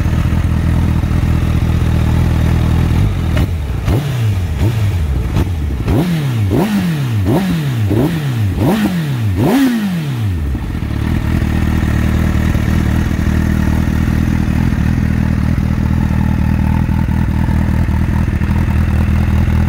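Honda CBR1000RR's inline-four engine breathing through a Moriwaki slip-on muffler. It idles steadily, then from about three seconds in gets about eight quick throttle blips, each revving up sharply and dropping back, the last one the highest. It then settles back to a steady idle for the second half.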